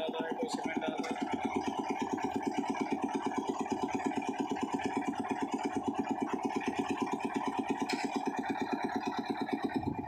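Engine of a site concrete mixer running steadily with a rapid, even pulse as the mixer churns a batch.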